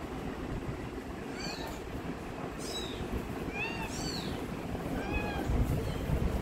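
Newborn Persian kitten mewing: about five short, high-pitched mews, each rising and falling in pitch, a second or so apart.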